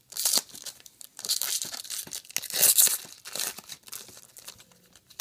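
Foil trading-card pack wrapper torn open by hand and crinkled, in a run of ripping strokes loudest about halfway, then dying down to light rustling.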